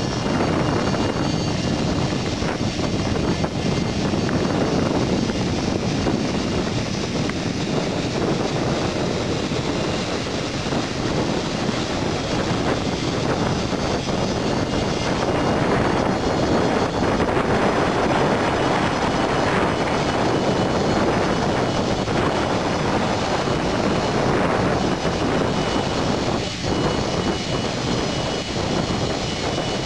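Fokker 70 jet airliner taxiing with its Rolls-Royce Tay turbofans at low power: a steady jet rumble and hiss with a thin high whine over it.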